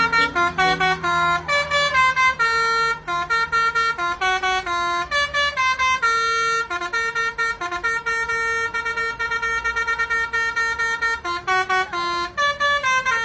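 Bus telolet horn, a multi-tone musical air horn, playing a fast tune of short stepped notes with a few longer held ones.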